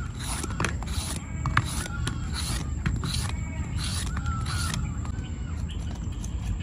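A hand peeler scraping the skin and ridges off a fresh angled luffa gourd in short, repeated strokes, about two a second.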